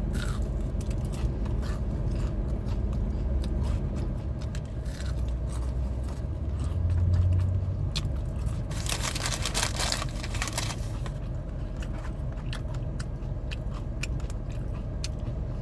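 Close-up crunching and chewing of a crispy fried onion ring: many small crackling crunches, with a denser stretch of crunching about nine seconds in.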